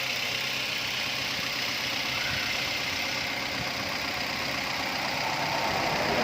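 Toyota Avanza's 3SZ 1.5-litre four-cylinder engine idling steadily, running after its bent connecting rods were replaced to cure a knock.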